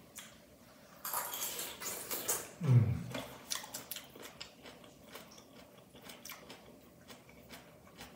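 Metal fork scraping and clinking against a granite-coated pan and a ceramic plate while picking up stir-fried pok choy and sausage. Light taps come scattered through, with one louder low thump about three seconds in.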